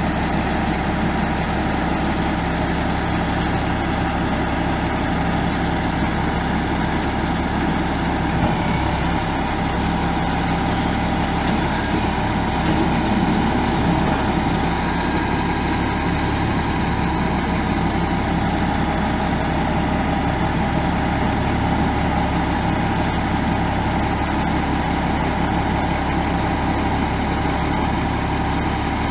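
International DT466 7.6L inline-six turbo diesel in a bucket truck, idling steadily.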